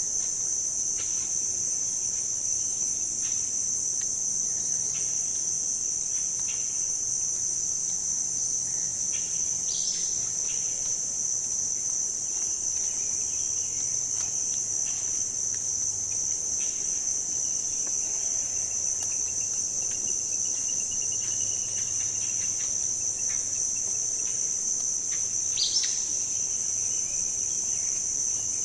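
Steady high-pitched insect chorus, like crickets trilling without a break. Two short bird chirps come through it, about ten seconds in and near the end.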